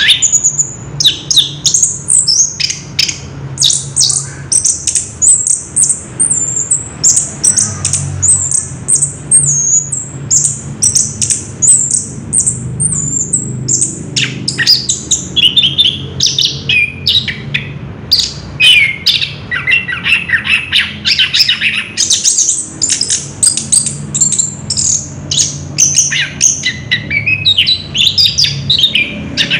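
Orange-headed thrush (anis kembang) singing a long, unbroken run of rapid, varied high phrases: the continuous rolling 'ngerol' song. A low steady hum runs underneath.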